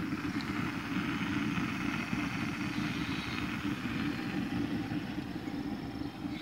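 Propane burner firing under a homemade copper monotube steam boiler: a steady, fluttering roar with a fainter hiss above it, as the boiler, not yet fully heated, builds pressure.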